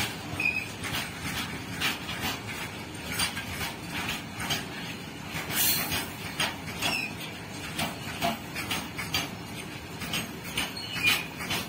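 Freight train of tarpaulin-covered open wagons rolling past at close range: a steady rumble of wheels on rail with repeated sharp clacks as the wheels cross rail joints, and a few brief high squeaks.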